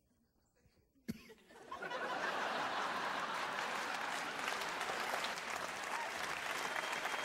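Theatre audience applauding. After about a second of near silence the clapping breaks out, swells within the next second and carries on as dense, steady applause.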